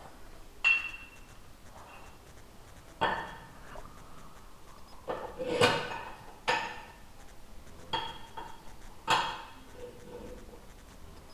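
Metal parts of a cylinder boring bar clinking and knocking as they are handled and set down on a steel stand: about half a dozen sharp metallic knocks with brief ringing, the loudest about halfway through.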